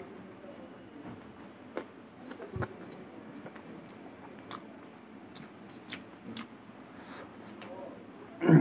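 A person chewing a mouthful of rice and pork with wet, smacking mouth sounds and scattered small clicks. A louder, sharp click comes near the end.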